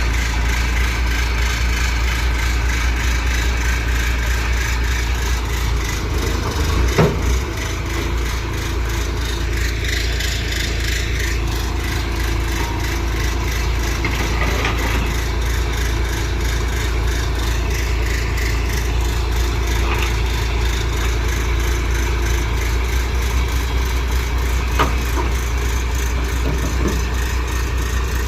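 Heavy diesel vehicle engine running steadily at a low pitch, with a short knock about seven seconds in and a few light clicks later.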